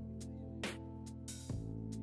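Background music: held notes with sharp beats about every half second to second.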